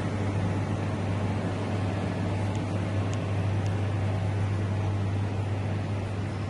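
Refrigeration unit running: a steady low compressor hum under an even fan-like rush of air.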